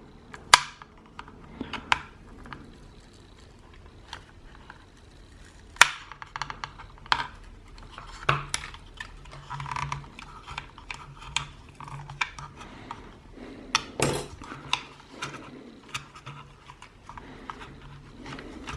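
Scattered small clicks and scrapes of a hand tool working against a plastic speaker housing as a glued foam pad is pried and peeled off.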